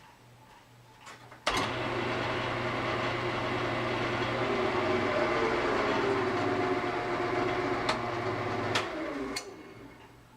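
Wood lathe turning a candlestick blank, a gouge cutting the spinning wood from about a second and a half in for roughly seven seconds with the lathe motor humming underneath. A few sharp clicks come as the cut ends, leaving only the motor hum.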